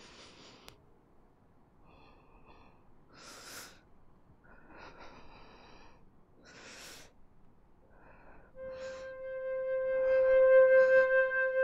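A girl's slow, laboured breaths: short gasps every second and a half to two seconds. About three-quarters of the way in, soft flute music enters on a held note and becomes the loudest sound.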